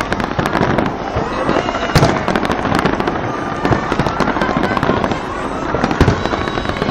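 A large fireworks display going off: a continuous din of crackling and many bangs in quick succession, with louder reports about two seconds in and again near the end.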